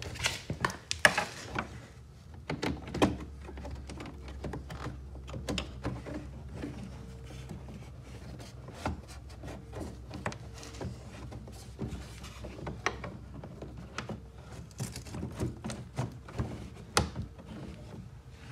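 Honeycomb ABS plastic grille screen being pushed and worked into a car's side air intake, clicking, knocking and scraping against the body panel edge as it is slid into place. The knocks come irregularly, the sharpest about a second in and again near the end, over a faint steady low hum.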